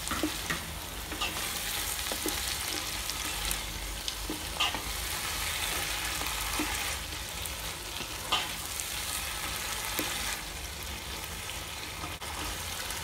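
Onion, garlic-paste and spice masala sizzling steadily in hot oil in a pot, with tomatoes and green chillies just added. A spoon stirring it knocks and scrapes against the pot now and then, sharpest about eight seconds in.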